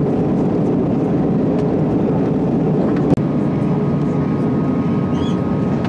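Steady engine and airflow noise inside the cabin of an Airbus A320-family airliner descending to land, an even rumble. About halfway through the noise jumps with a brief click and carries on slightly changed.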